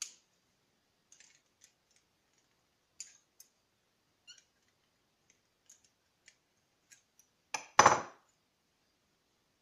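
Metal wire being bent and twisted with pliers: scattered light metallic clicks and ticks. Near the end a louder double knock as a tool is set down on the wooden workbench.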